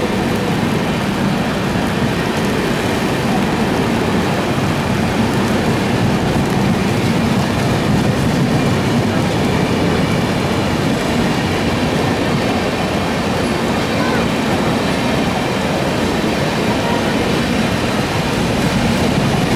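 Heavy rain drumming steadily on an umbrella over the rumble of LHB passenger coaches rolling slowly past on the track.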